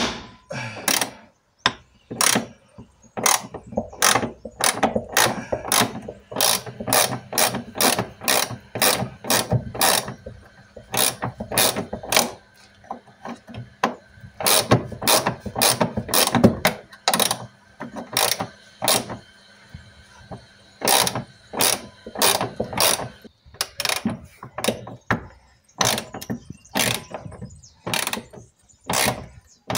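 Ratchet wrench clicking in quick runs with short pauses while the nut of a rear suspension arm bolt is worked loose.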